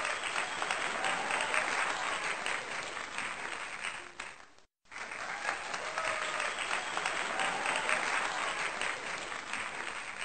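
Audience applauding, with a few voices calling out in it. The applause fades, drops out for a moment about halfway, then the same burst of applause plays again and cuts off suddenly.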